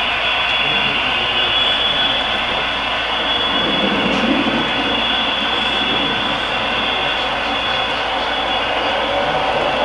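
HO scale model train of tank cars running on the layout track, a steady whirring rumble of wheels and motor with a thin high whine over it.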